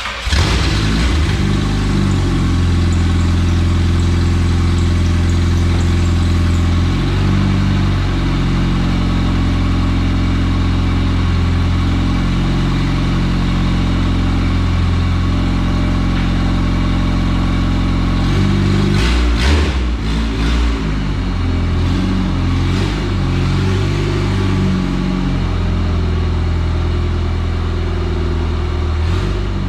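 H2B-swapped Honda Civic running on E85, its engine and exhaust holding steady as it drives. About two-thirds of the way through the sound turns rougher, with a few sharp cracks as the revs change.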